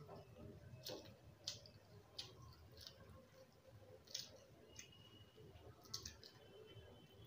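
Faint chewing and lip-smacking of syrupy jalebi: a scattering of short, irregular sticky mouth clicks.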